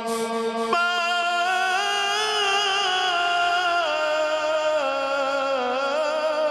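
Male qari's unaccompanied Quran recitation, sung in long melismatic phrases. One drawn-out line wavers in ornaments and steps slowly down in pitch.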